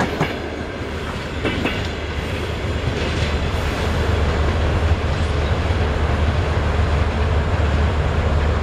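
Passenger coaches rolling past on the rails, with wheel clicks over rail joints a few times in the first three seconds. As the last coach passes and pulls away, a steady low rumble grows louder.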